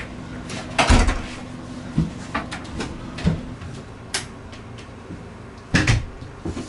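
An apartment front door shutting with a heavy thud about a second in, followed by scattered light knocks and clicks, and another loud thud near the end.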